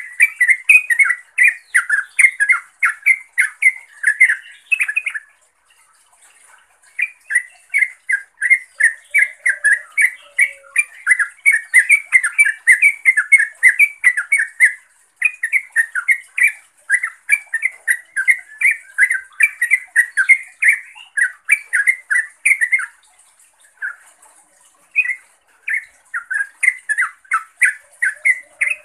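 Yellow-vented bulbul (trucukan) giving long runs of quick chattering calls, a call to a rival or companion. The runs break off briefly about five seconds in and again near the end.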